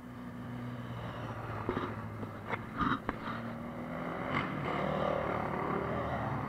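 Motorcycle and quad bike engines idling with a steady low hum, with a few sharp knocks in the first half. A quad's engine grows louder in the second half as it passes close by.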